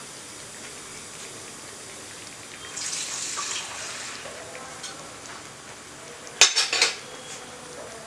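Metal kitchen vessels clattering, with a quick run of sharp clinks about six and a half seconds in. A short hiss comes about three seconds in, as water is being readied to add to chicken cooking in a pan.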